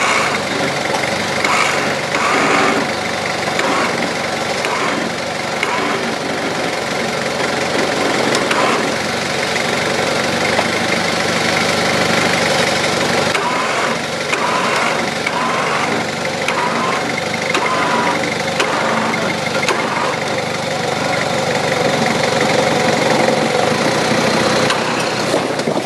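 Toyota Hilux 3.0-litre turbo diesel engine running steadily at low revs while the truck crawls over rocks on the winch line.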